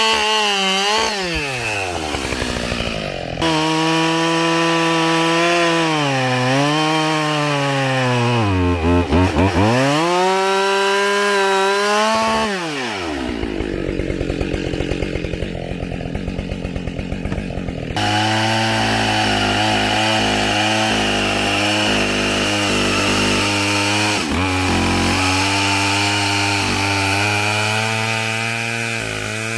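Husqvarna 572XP two-stroke chainsaw with Oregon RD ripping chain, ripping lengthwise through a log. The engine runs at high revs, its pitch sagging and recovering as the bar loads in the cut. It drops away when the throttle is let off, near the start and again about halfway through.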